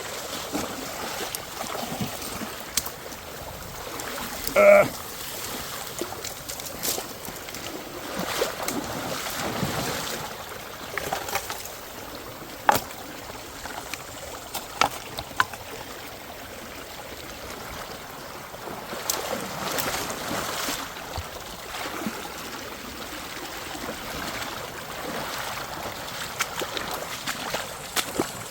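Creek water running, with splashing steps and knocks of stones as people wade upstream through the shallows. A short pitched squeak about five seconds in is the loudest sound.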